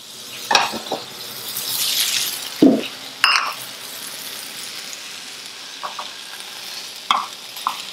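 A wooden spatula knocking and scraping in a frying pan as pieces of just-cooked chicken breast are moved into a bowl, over a light sizzle from the hot pan. The loudest knock comes a little under three seconds in.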